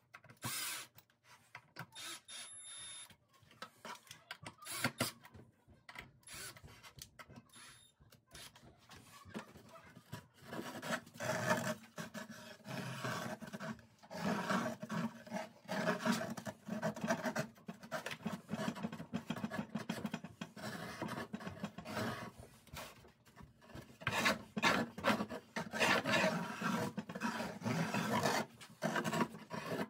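Scrap-wood beam compass swung on its pivot screw, the protruding screw tip scratching a circle into a wooden countertop panel in repeated rasping strokes, louder and busier from about ten seconds in and loudest near the end. A cordless drill/driver runs briefly at the start.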